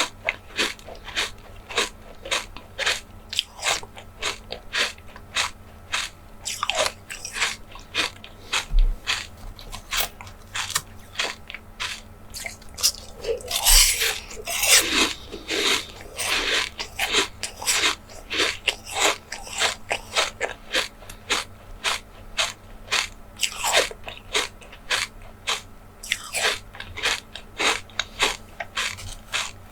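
Close-miked eating: a steady run of crunchy bites and chewing, about two to three crisp crunches a second, louder for a moment about halfway through.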